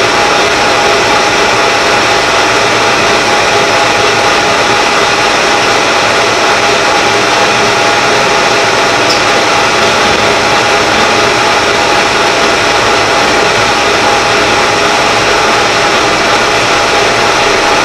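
Harrison Clausing 21x60 metal lathe running steadily while turning a long bar: a steady mechanical whine from the machine's drive, over the even hiss of the cut.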